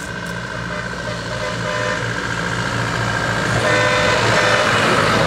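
A motor vehicle running, growing louder over the few seconds, with a few steady tones in its sound.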